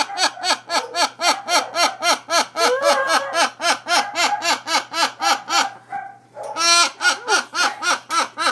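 Rapid, regular laugh-like calls, about five a second, each rising and falling in pitch, with a brief break about six seconds in.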